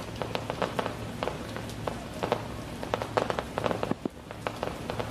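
Distant fireworks going off in quick, irregular pops and crackles, several a second, over a steady low hum.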